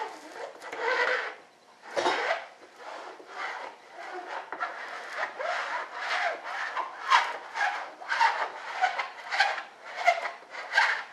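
Repeated rubbing strokes of a hand tool worked over fiberglass cloth in a wing mold, at about two strokes a second.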